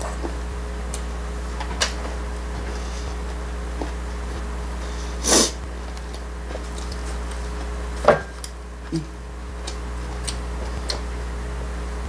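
Quiet tableside eating sounds over a steady low hum: small clicks of chopsticks against dishes, a short loud sniff about five seconds in, and a sharp clink about eight seconds in, the loudest sound.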